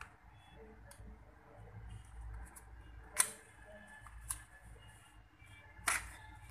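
Small clicks and knocks of a 2.5-inch laptop hard drive being lifted out of its bay and handled, with sharp taps about three, four and six seconds in.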